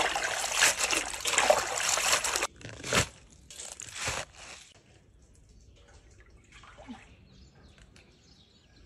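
Water running and splashing while vegetables are washed, stopping suddenly about two and a half seconds in. Two brief splashes follow, then only a faint background.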